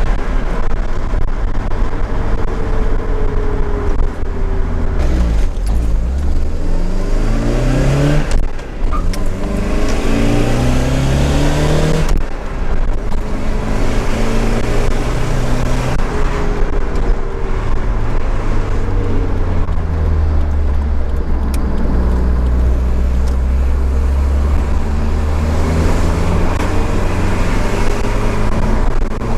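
Nissan 200SX S13's CA18DET turbocharged 1.8-litre four-cylinder engine under way, its pitch rising and falling as it accelerates and changes gear, with the note cutting out briefly twice where the throttle is lifted.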